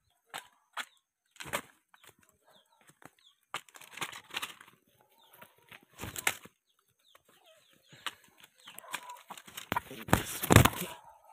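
Dry leaves and ground litter rustling and crackling in short bursts as a wild rooster moves about, with a louder scuffle about ten seconds in.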